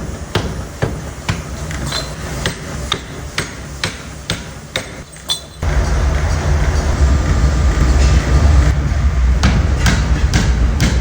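Pneumatic forging hammer striking hot steel in a rapid even rhythm, a little over two blows a second. About halfway through, a loud steady low machine rumble takes over, with only occasional strikes.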